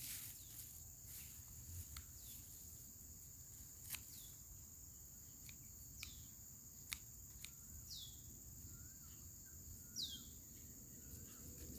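Quiet rural ambience: insects droning steadily at a high pitch while a bird gives short down-slurred calls every couple of seconds. A few sharp clicks stand out, the loudest about 4 and 7 seconds in.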